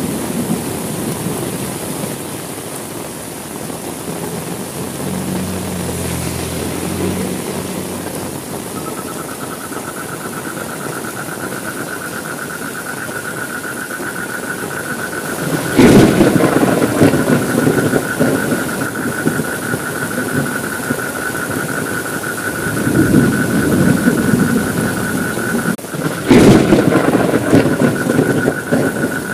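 Heavy rain falling steadily, with two sharp thunderclaps, about halfway through and near the end, each followed by a low rumble. A steady high thin whine comes in about a third of the way through and holds to the end.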